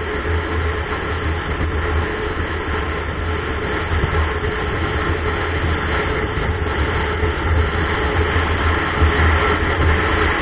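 Steady low rumble of a motorcycle's engine and wind while riding at road speed, heard through a mounted camera's microphone, growing a little louder near the end.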